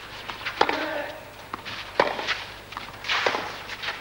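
Tennis rally on a clay court: three sharp racket strikes on the ball, about a second and a half apart.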